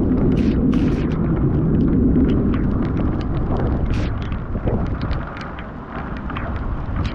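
Thunder rumbling loudly with many sharp crackles, easing off about five seconds in.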